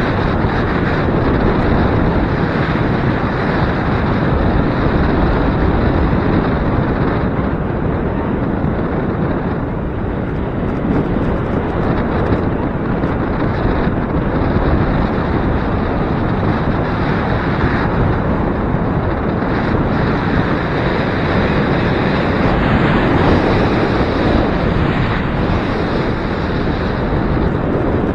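Strong gusty wind buffeting the microphone: a loud, steady rushing noise that swells and eases slightly.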